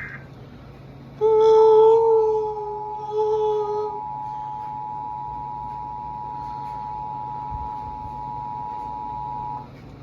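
Emergency Alert System attention signal: a steady two-tone alarm (about 850 and 950 Hz together) that starts about a second in and cuts off sharply near the end, announcing a broadcast flash flood warning. For its first few seconds a louder, lower tone with a buzzing hiss sounds over it.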